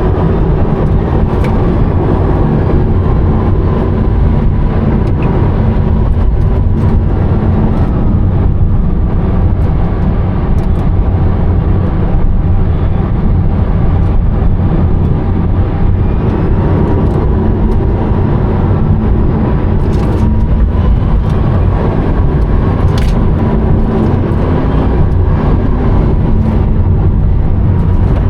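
Rimac Nevera, a four-motor electric hypercar, driving, heard from inside the cabin: a loud, steady rumble of tyres and road with a faint steady electric-motor whine. There are a couple of brief clicks near the end.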